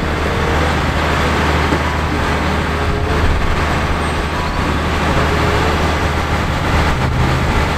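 Diesel engine of a concrete mixer truck running steadily, giving a constant low drone.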